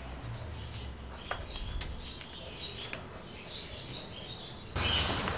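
Faint small-bird chirps over a low steady hum, with a few light clicks. Near the end a louder rustling noise starts suddenly.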